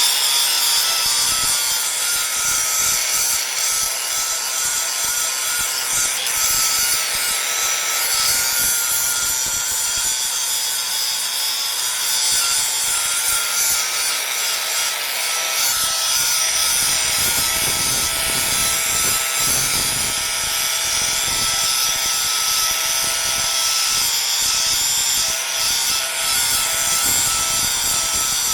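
Power grinder running continuously under load: a steady grinding hiss with a high whine.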